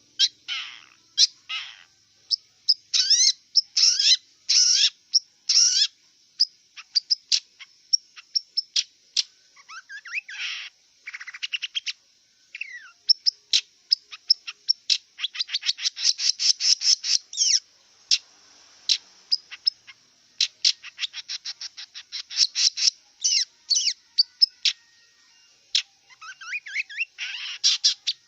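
Long-tailed shrike (cendet) singing a varied song of short, sharp notes and rapid chattering runs, broken by a few scratchy, harsher phrases near the start and near the end.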